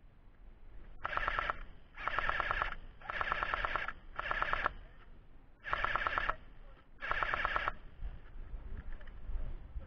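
Airsoft electric rifle firing six short full-auto bursts, a rapid stream of shots in each, the first about a second in and the last near eight seconds.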